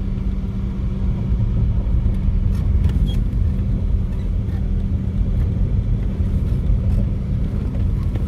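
Motor vehicle driving at a steady speed: a loud, even low rumble of engine and road noise with a constant hum.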